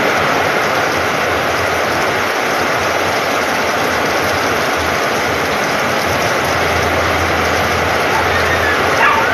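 Heavy rain pouring steadily, drumming on a corrugated metal roof and splashing into puddled ground. A brief pitched sound comes near the end.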